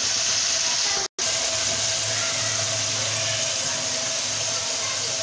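Potato fries deep-frying in hot oil in a kadhai, a steady sizzle of bubbling oil, with the fries browning near the end of frying. A faint steady hum runs underneath, and the sound cuts out for an instant about a second in.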